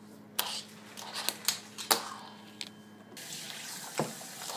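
Fingerboard being played on a hard countertop and a metal rail: a string of sharp, separate clicks and taps, several close together at times. A steady hiss joins about three seconds in.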